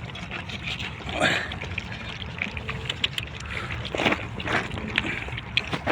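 A crowd of puppies lapping milk from large metal platters: many quick, irregular wet laps and clicks.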